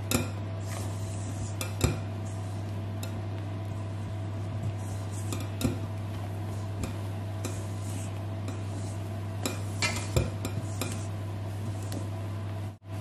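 A silicone spatula scraping and knocking against a stainless steel mixing bowl while folding thick, whipped sponge-cake batter, giving scattered clinks and scrapes, over a steady low hum.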